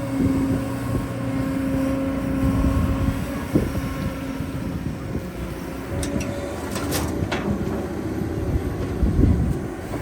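Heavy construction machinery's diesel engine running steadily with a held hum, and a few sharp metallic knocks, one about three and a half seconds in and several between six and seven and a half seconds in.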